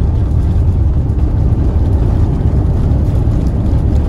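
Steady, loud low rumble of an Airbus A350-900 during landing rollout: its Rolls-Royce Trent XWB engines and the rolling wheels, heard inside the cabin from a window seat over the wing.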